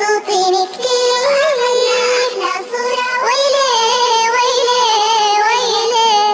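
Children's song: a high vocal melody with long held, wavering notes over a backing track.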